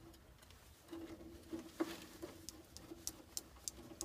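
Faint clicks and light taps of wiring and ground-wire connectors being fitted inside the open cabinet of a Takagi tankless water heater, with a few sharp ticks in the second half, over a faint steady hum.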